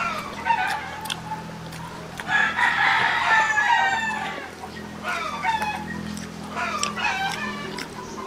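Backyard chickens clucking on and off, with a rooster crowing once for about two seconds in the middle.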